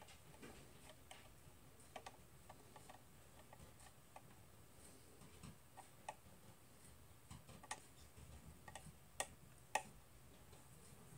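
Faint, irregular small clicks of a screwdriver turning a trimmer capacitor on a signal generator's circuit board, setting the top end of its frequency range during alignment.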